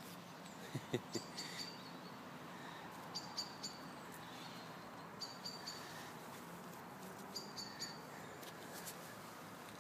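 A bird chirping: short clusters of three or four high chirps, repeating about every two seconds. A couple of faint clicks sound about a second in.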